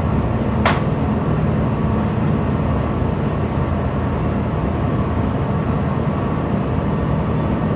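Steady low hum of a ship's machinery mixed with a rushing noise, likely wind. A single brief sharp click cuts through about a second in.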